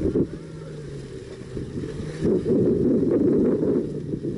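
Mitsubishi L200 pickup's engine running under load as the truck crawls through deep mud ruts, its steady note swelling louder for a second or so about halfway through, over a rumble of wind on the microphone.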